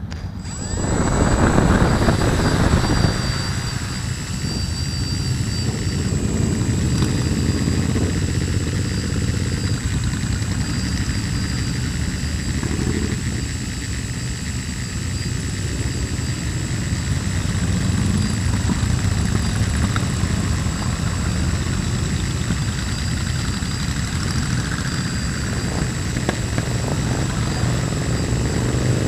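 Quadcopter drone's rotors and motors, heard from its own on-board camera, with a steady high whine throughout and a loud surge of rotor wash about a second in as it lifts off. Under it runs the low rumble of a column of cruiser motorcycles riding off.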